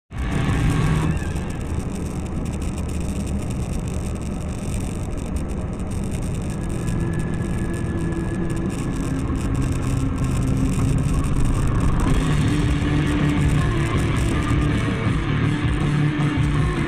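A car driving, its engine and road noise steady, with music playing over it.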